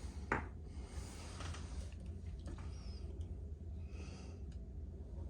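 Handling noise from old pocket knives: one sharp click about a third of a second in, then faint scattered ticks and soft rustles over a steady low hum.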